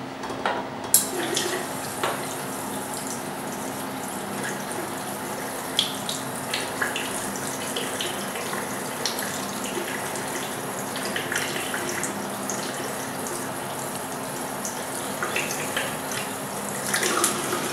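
Tap water running steadily into a plastic water bottle held under a bathroom basin tap, filling it. The flow starts about a second in, with a few brief clicks over the hiss.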